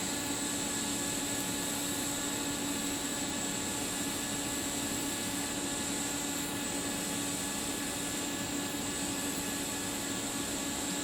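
Steady mechanical hum and hiss with a low steady tone, unchanging throughout, with no distinct handling or tool sounds.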